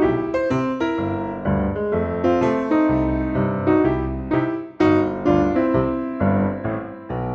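Background music: piano playing chords and a melody, notes struck every half second or so.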